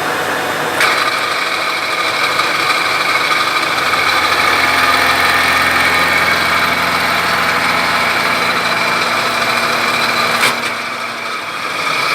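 Milling machine running and cutting: steady mechanical noise with a high whine that sets in with a click about a second in, and a sharp click near the end.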